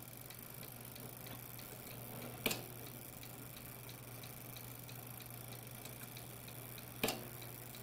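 Old German Argo mechanical taximeter ticking steadily, about three ticks a second, as its gear train is driven through a cable by a speedometer test machine, whose motor hums low underneath. Two louder clicks, about two and a half seconds in and near the end, come as the fare counter steps up a notch.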